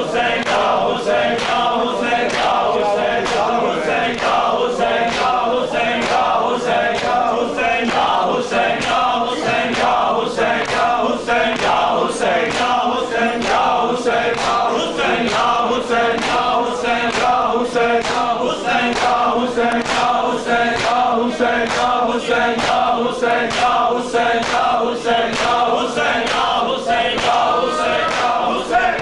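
A group of men chanting an Urdu noha together over a steady, even beat of open hands striking bare chests (matam), the slaps keeping time with the lament throughout.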